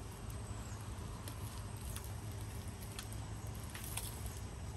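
Faint rustling and a few light ticks of dry leaves and soil as an Echeveria imbricata clump is cleaned by hand, over a steady low background hum.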